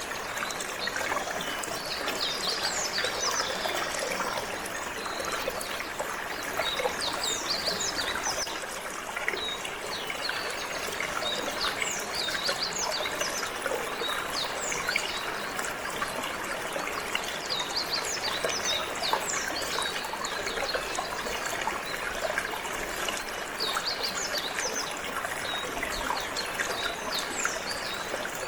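Water flowing and trickling steadily, with canaries chirping in many short, high notes throughout.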